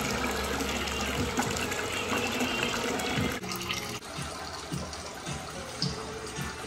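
Water running into a bathtub filled up to its overflow plate, a steady rushing that turns quieter about three and a half seconds in.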